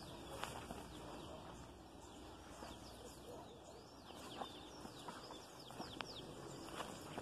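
Several small birds chirping, with many short, quickly falling calls scattered throughout, over a faint rustle of plants being brushed through.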